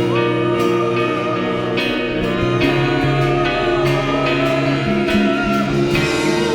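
Live worship band music: a slow instrumental passage of sustained chords with guitar, under a long held, slightly wavering lead line that ends about five and a half seconds in.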